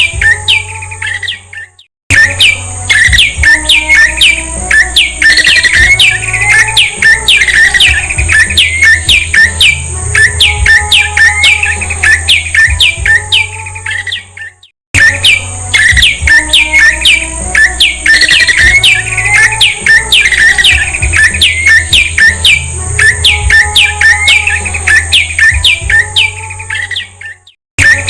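Prinia (prenjak) calling: a fast series of sharp, falling chirps, about three a second, in a loop that breaks off briefly and starts again about 2 s in, about 15 s in and near the end. A steady low hum and a steady high whine run under the calls.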